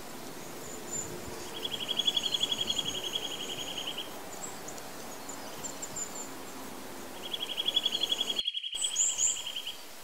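Eurasian nuthatch singing: two fast trills of evenly repeated whistled notes at one pitch, the first a couple of seconds in and the second near the end, each lasting about two and a half seconds. Faint, thin, higher notes sound in between.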